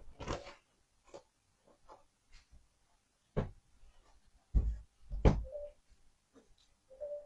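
Scattered clicks, taps and knocks from handling a laptop and its parts, the heaviest knocks coming a few seconds in, with two brief squeaks near the end.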